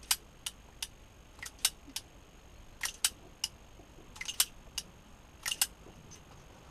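Sharp metallic clicks, irregular and often in close pairs, from a single-action revolver at half-cock with its loading gate open as its cylinder is turned by hand and the gun is unloaded.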